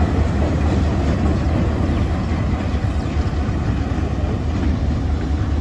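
Diesel locomotive engine running as the locomotive moves slowly, a steady low rumble.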